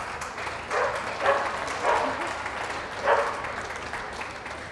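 Spectators applauding steadily, many hands clapping at once, with a few louder swells.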